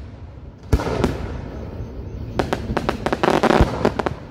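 Aerial fireworks shells bursting. There is one loud boom just under a second in, then a quick run of sharp bangs and crackling around three seconds in, which ends in another heavy boom.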